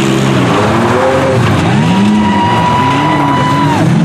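Several minivan engines revving up and down, with a high-pitched squeal that holds steady for about two seconds in the middle.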